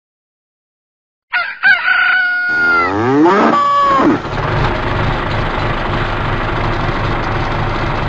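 Farmyard sound effects: after a second of silence a rooster crows, then a cow gives a long moo rising in pitch, and from about four seconds in an engine runs steadily with a low chugging rumble.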